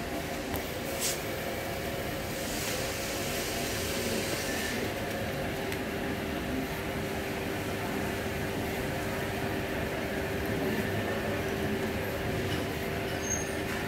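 Cotton wick making machine running: its electric motor and chain-driven rollers give a steady hum, with a brief click about a second in.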